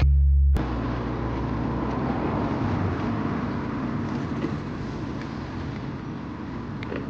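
The tail of a music track cuts off about half a second in, giving way to a steady hum of road traffic that eases off slightly over the following seconds.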